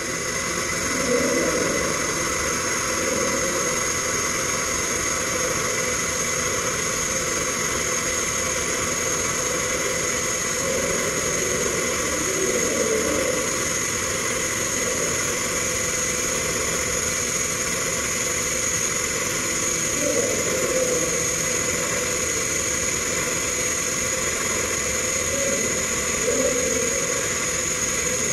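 Steady industrial machinery drone with a constant high whine, under the hiss of a TIG welding arc on a steel pipe.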